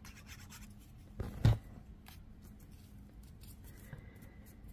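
Hands handling and pressing paper scraps on a table: faint rustling and small clicks, with one sharper knock about a second and a half in.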